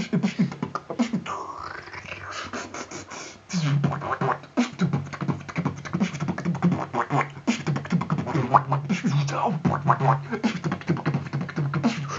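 Solo vocal beatboxing: rapid mouth-made kicks, snares and clicks over a buzzing low bass tone. A rising swoop comes about a second and a half in, then a quieter stretch, and the full beat comes back at about three and a half seconds.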